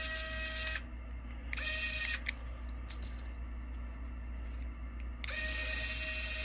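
RC4WD 1/8-scale Warn Zeon 10 replica winch's small electric motor reeling in line in three runs: a steady high whine that stops just under a second in, a short run around two seconds in, and a longer run starting about five seconds in. A few light clicks come in between.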